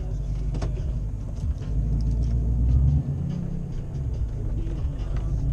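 A car's engine and road rumble, heard from inside the cabin as it drives slowly. The rumble swells about two seconds in, then drops suddenly about a second later.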